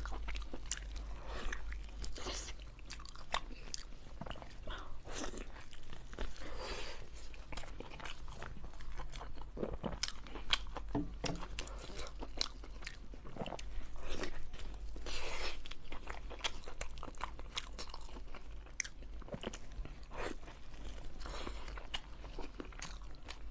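Close-up eating sounds of seafood being bitten and chewed: irregular crunches and crackles, over a steady low hum.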